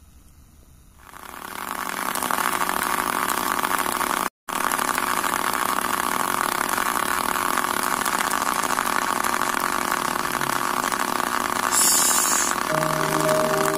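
Scribble robot's small DC hobby motor running and vibrating the plastic-cup body so it buzzes and jitters across the whiteboard on its marker legs. It starts about a second in and drops out for an instant about four seconds in, with a short hiss near the end.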